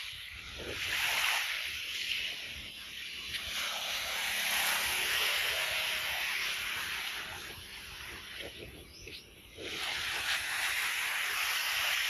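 Small waves washing onto a sandy beach, the hiss swelling and fading every few seconds, with wind buffeting the microphone.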